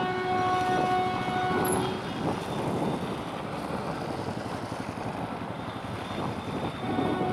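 Train horn giving a long steady blast that stops about two seconds in, then the rumble of a train rolling past; the horn sounds again near the end.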